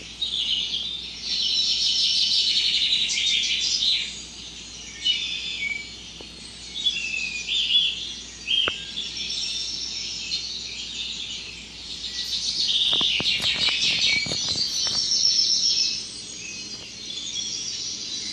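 Small birds chirping and trilling in quick, high-pitched runs, with pauses between bursts. A quick series of sharp clicks comes about thirteen seconds in.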